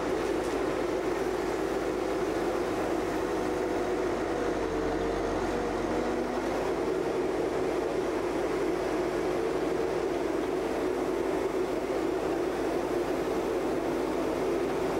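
Escorts backhoe loader's diesel engine and hydraulics running steadily as the arm digs and dumps soil.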